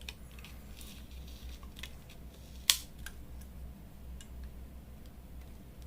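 Small clicks of smartphone parts and tools being handled during disassembly, with one sharper click a little under halfway through, over a low steady hum.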